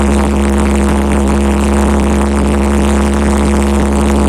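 Homemade LPG-fuelled valveless pulse jet engine running steadily, a loud continuous drone.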